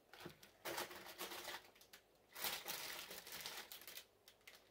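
Foil and plastic ration-pack pouches crinkling and rustling as they are handled, in two stretches of about a second each with a few light clicks between.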